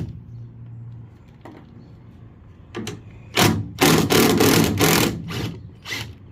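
Socket tool loosening the tail light bolts on a Ford Super Duty pickup: several short bursts of rapid mechanical rattling, the longest about a second, over a faint steady hum.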